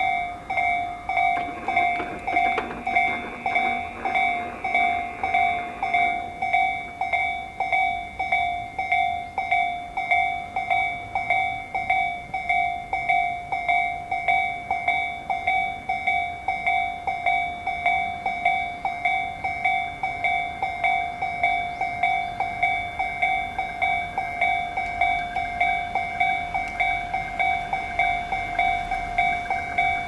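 Japanese electronic level-crossing alarm of Tobu's 'C' sound, the slow-tempo type, dinging over and over at an even pace, a few dings a second, while the crossing is closed for a train.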